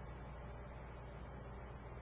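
Quiet room tone: a steady low hum with faint hiss, and no distinct handling sounds.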